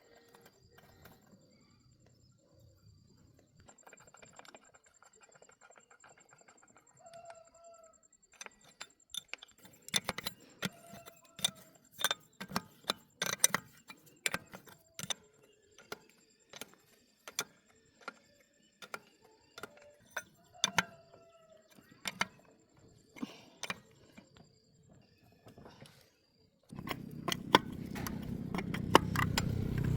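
Metal tools and parts clinking and clicking, many separate sharp strikes, with a few short bird calls in between. Near the end a loud, steady noise starts suddenly.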